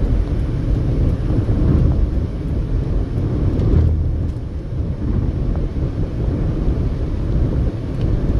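Car cruising on a highway: a steady low rumble of tyre and road noise.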